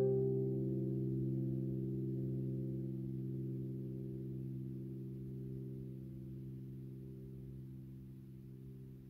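A low chord held on a digital piano, ringing out and slowly fading away with no new notes played.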